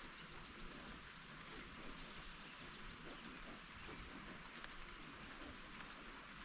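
Steady rain falling, an even soft hiss with occasional sharp drip taps close by. Short high-pitched chirps repeat about twice a second over it.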